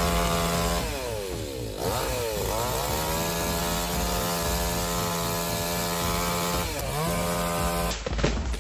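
Chainsaw running at high revs in a steady whine. Its pitch dips and climbs back up about a second in and again near the end, then breaks off abruptly.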